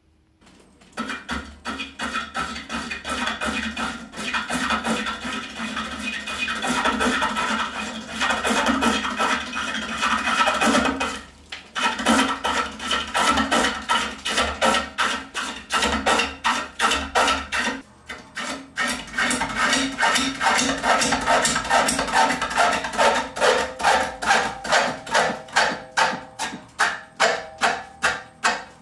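Bowl gouge cutting a large, out-of-round wooden bowl blank spinning on a Oneway 2436 lathe. The interrupted cut makes a fast, regular knocking, about three knocks a second, that stops briefly twice.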